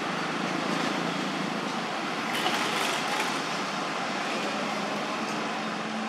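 Steady background noise of road traffic, with a faint engine hum and a few brief clicks about halfway through.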